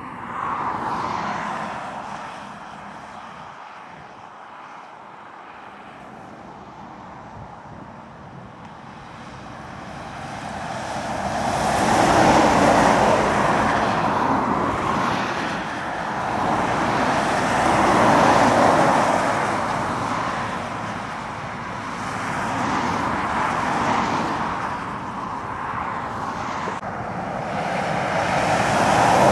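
Lorries and cars passing one after another on a main road, the tyre and engine noise swelling and fading with each pass, about five times. An articulated DAF lorry passes near the end.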